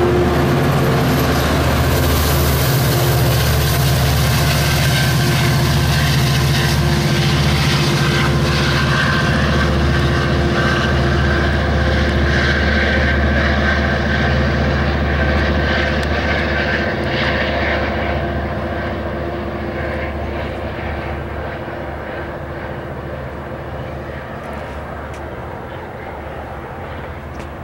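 Amtrak EMD F59PHI diesel-electric locomotive's engine running under power as the train pulls away, with a steady low drone and wheel-and-rail noise from the passing cars. The sound fades over the last ten seconds as the locomotive moves off.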